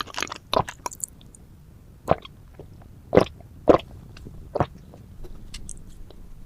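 Close-miked chewing and mouth sounds of someone eating: about five separate short, loud mouth sounds, spaced roughly a second apart, between quieter chewing.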